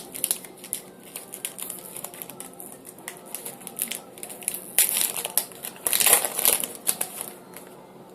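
A trading card pack's wrapper crinkling as it is torn open and handled, in many small crackles with two louder bursts about five and six seconds in.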